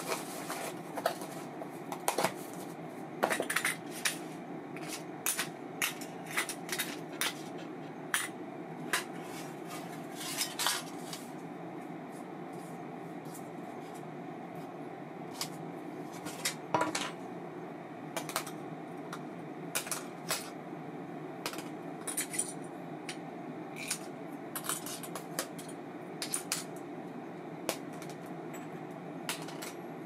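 Small metal parts of a baitcasting reel clinking and tapping as they are handled and set down during servicing, in irregular light knocks over a steady hum.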